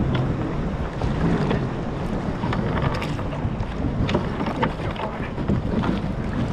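Wind buffeting the microphone on open water, with scattered ticks and splashes as a lobster hoop net is hauled up hand over hand beside a kayak.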